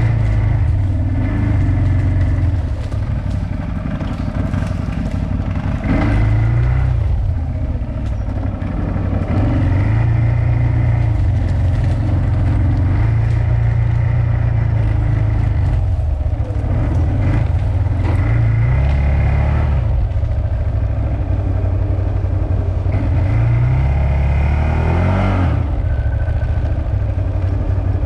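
CFMoto CForce 1000 ATV's V-twin engine running throughout, its pitch rising and falling with the throttle, with a sharp rev up and back down near the end.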